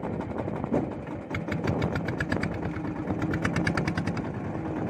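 A small river boat's engine running steadily with a fast, even putter.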